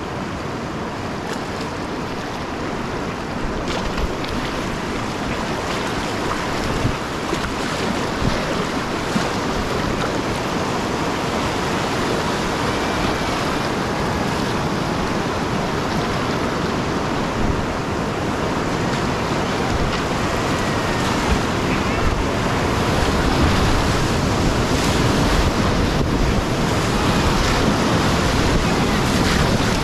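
Whitewater rapid rushing steadily, a dense wash of moving water that grows gradually louder.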